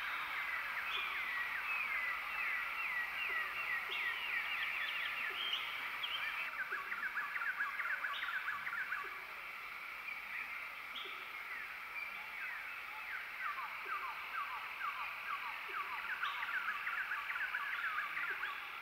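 Rainforest ambience: a dense chorus of small animal calls, many quick falling chirps and trills overlapping, with a faint tick repeating about every second and a half. It begins to fade near the end.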